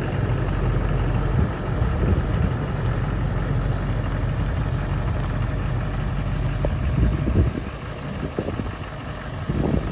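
Ford F-350 dually pickup's engine running at low speed as the truck creeps on gravel, a steady low rumble that eases somewhat near the end.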